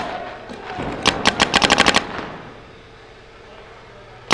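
Proto Reflex Rail paintball marker firing a rapid string of about ten shots in a second, starting about a second in.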